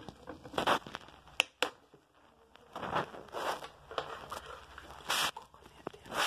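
Handling noise: a string of short rustles and rubs, with two sharp clicks about a second and a half in.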